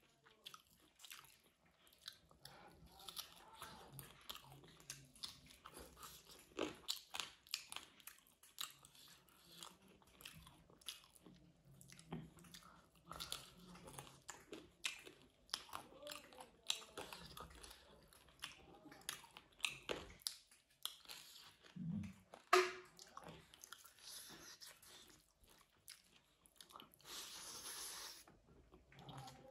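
Close-miked mukbang eating: a person chewing mouthfuls of rice and meat curry eaten by hand, with irregular wet mouth clicks and smacks.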